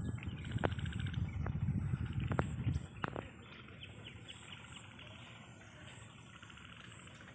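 Birds chirping: a few sharp short chirps in the first three seconds and fainter ones after, over a steady high hiss. A low rumbling noise fills the first three seconds and then drops away.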